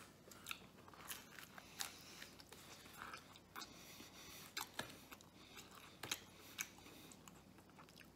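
Faint chewing of a mouthful of pizza: soft, irregular mouth clicks and smacks.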